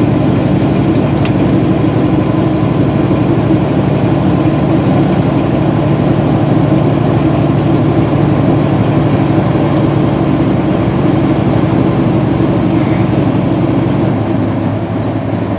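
Semi tractor's diesel engine and road noise heard from inside the cab while cruising on the highway, a steady low drone that gets a little quieter near the end.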